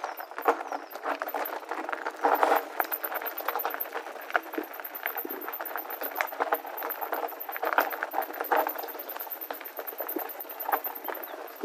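Mountain bike riding down a rough gravel and dirt trail: tyres crunching over stones while the bike rattles with many irregular small knocks and clatters.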